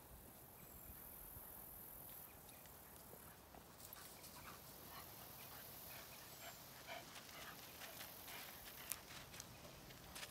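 Faint, scattered clicks and crunches of Bernese mountain dogs' paws on gravel as they run about; otherwise close to silence.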